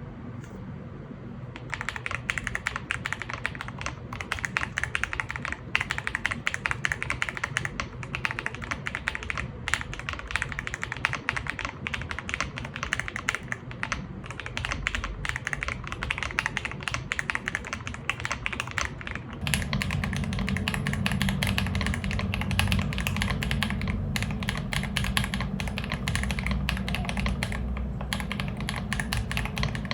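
Typing on an Ajazz AK870 mechanical keyboard with Feker Matcha switches: a steady run of keystroke clacks that starts about two seconds in. About twenty seconds in, the strokes come faster and run together, with a deeper tone.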